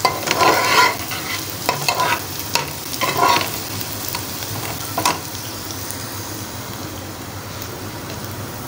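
Sliced onions sizzling in hot oil in a metal pan as they brown, with a spoon scraping and clicking against the pan during the first few seconds, then a steady sizzle.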